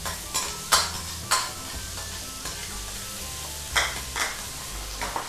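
Minced garlic sizzling in a hot stainless-steel wok, stirred with a metal ladle that scrapes and clinks against the pan. The sharp clinks come several times in the first second and a half and twice more near the end.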